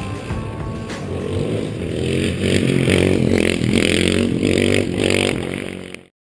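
Supermoto motorcycle accelerating hard away in a wheelie, its single-cylinder engine revving up in several rising sweeps. The sound cuts off suddenly near the end.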